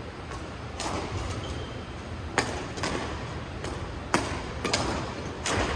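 Badminton rackets striking a shuttlecock in a rally: a string of sharp hits, about six, roughly a second apart, over a steady low hall hum.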